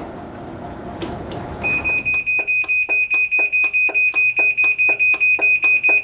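Chamberlain belt-drive garage door opener running the door up on its own, in the automatic open-and-close cycle that follows setting the travel limits. A steady high whine with rapid, even clicking, about four or five a second, comes in after about a second and a half.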